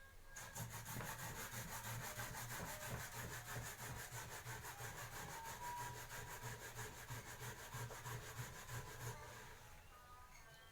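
Bottle gourd being grated on a hand grater: quick, even rasping strokes that start about half a second in and fade out near the end.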